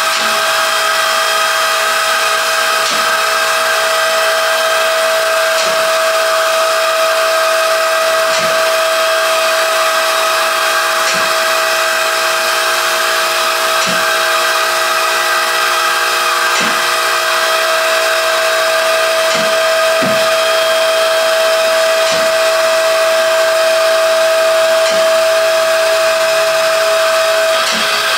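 Two-post car lift's electric hydraulic pump motor running steadily with a high whine as it raises the car, with a soft knock about every three seconds from the lift's safety locks. The motor cuts off at the very end.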